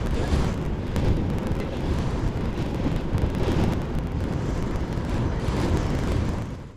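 Wind buffeting the microphone in a loud, rough rumble, with the wash of sea surf beneath it; it cuts off suddenly at the end.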